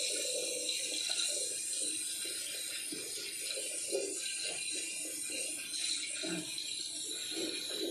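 Kitchen tap running into a sink while plates are washed under it, with dishes knocking together now and then.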